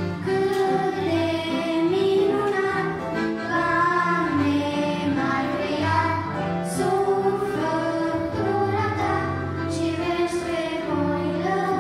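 A small group of children singing a Christian song in Romanian into microphones, accompanied by an electronic keyboard holding sustained low chords.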